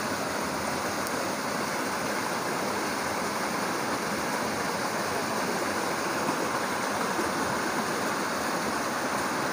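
Rushing river water: a steady, even roar of fast-flowing water.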